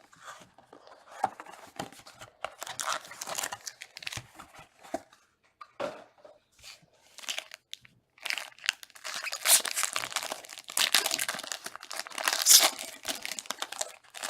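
Plastic shrink wrap and packaging being torn open and crinkled by hand as a trading card box is unwrapped, in irregular bursts that grow busiest in the second half.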